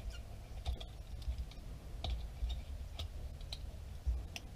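Irregular small clicks and taps of hands working the old TPMS sensor and valve stem loose inside a truck wheel rim, over a low rumble.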